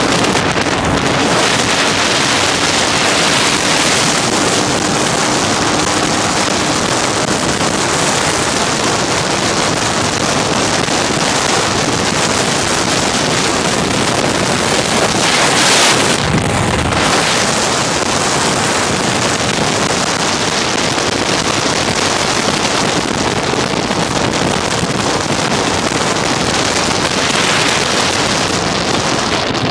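Steady rush of wind on the microphone of a moving motorcycle, with the bike's engine running underneath. A brief louder rush comes about halfway through.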